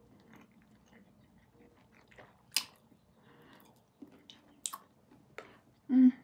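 A person eating chicken wings: quiet chewing with a few sharp wet lip smacks as she sucks sauce off her fingertips, and a short hum of the voice near the end.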